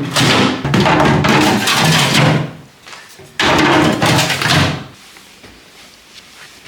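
Music with a drum beat in two loud phrases, stopping about five seconds in, after which only faint background sound remains.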